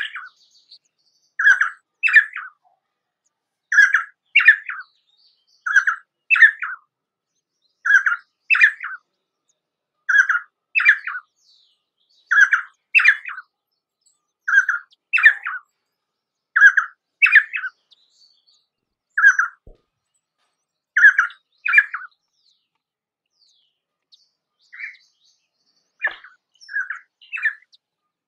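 Painted spurfowl calling: a two-note phrase repeated about every two seconds. After a short pause near the end comes a looser run of notes.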